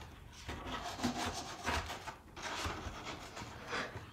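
A hand rubbing a Maltese dog's fur on its head: a run of scratchy strokes, about one or two a second.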